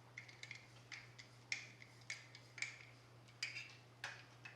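Faint metal clicks from a 13 mm wrench tightening the nut on a door spring compressor tool, a sharp click about every half second, seven or eight in all.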